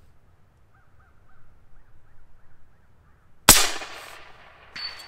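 A single shot from an AirForce Texan .457 LSS precharged big-bore air rifle, a sharp loud crack with a short fading tail, firing a 350-grain slug. A little over a second later comes a faint high ring, the slug striking the 6-inch steel plate at 200 yards.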